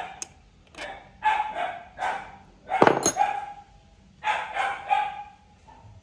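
A dog barking repeatedly in short runs, about ten barks in all.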